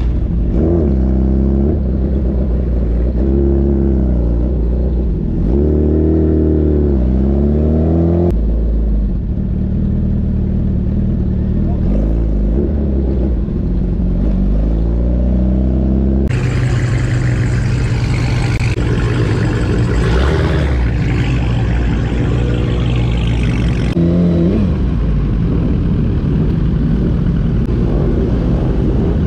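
Sport motorcycle engines revving up and down while riding, in several stretches cut together so that the sound changes abruptly a few times. Past the middle there is a stretch of rushing wind noise.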